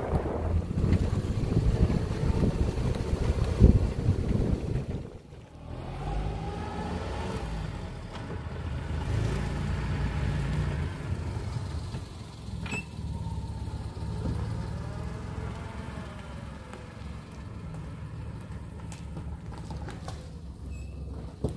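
Car engine running while driving, its pitch slowly rising and falling. Wind noise on the microphone over the first few seconds.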